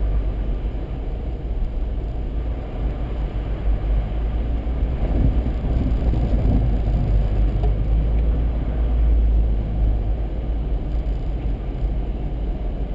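Steady low rumble of a vehicle driving at road speed, heard from inside the cab.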